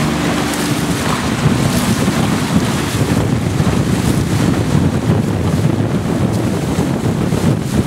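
Steady wind buffeting the microphone, over the rush and splash of water from a dragon boat crew's paddles.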